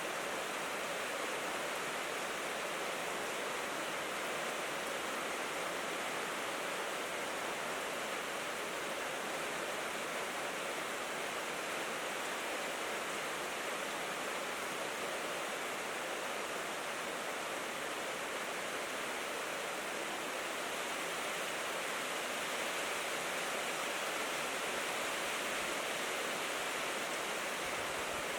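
Heavy rain falling steadily on a corrugated tin roof, a dense, even hiss with no single drops standing out.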